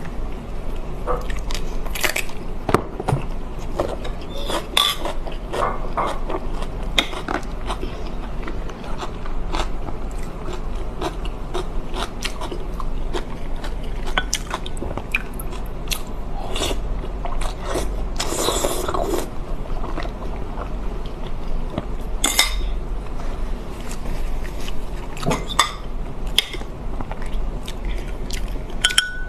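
A person biting and chewing food close to the microphone, with scattered crunchy bites and wet chewing clicks, over a steady low hum.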